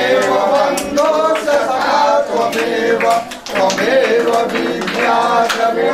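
Several voices singing a Hindu devotional hymn, with scattered hand claps.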